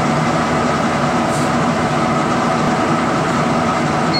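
Met One CNC-1104 condensation nucleus counter running, drawing air through its sample inlet: a steady mechanical hum with a few steady tones in it.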